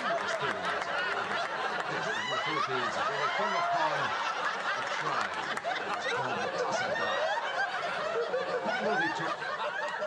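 Sitcom studio audience laughing, many voices overlapping without a break: a laugh track.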